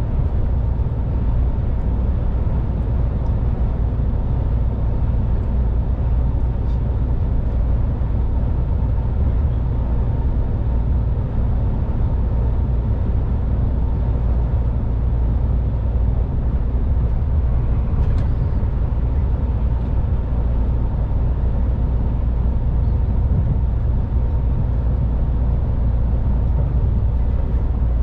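MAN truck driving at a steady pace: a continuous deep rumble of engine and tyres with a faint steady hum above it.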